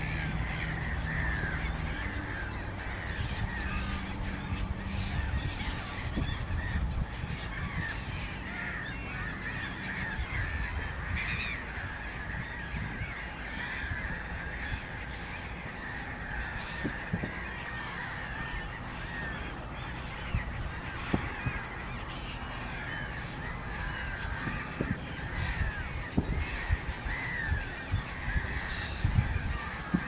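A flock of waterbirds calling continuously, many short calls overlapping into a dense chatter, with a few louder calls standing out in the second half.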